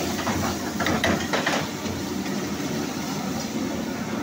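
High-flame restaurant gas burner running with a steady rush under a kadai, with a quick cluster of metal ladle knocks against the pan about a second in.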